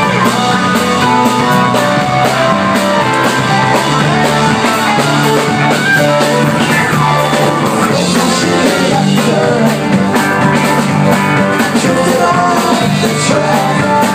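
Live rock band playing a song: electric guitars over a steady bass line and a drum kit keeping a regular beat.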